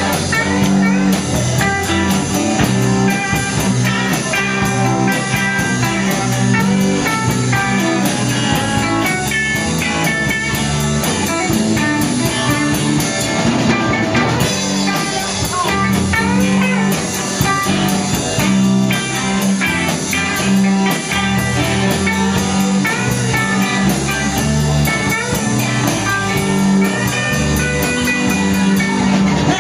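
Live band playing an instrumental passage on electric guitars, electric bass and drum kit, with no vocals.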